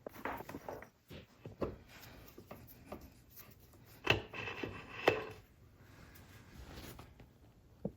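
Hand work with tools and parts: irregular rubbing and scraping with scattered clicks, and two sharper knocks about four and five seconds in.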